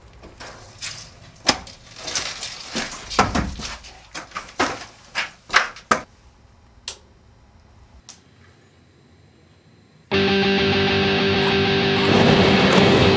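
Footsteps crunching and crackling through dry leaves and rubble, a string of irregular sharp clicks for several seconds. About ten seconds in, electric-guitar rock music cuts in suddenly and keeps going loudly.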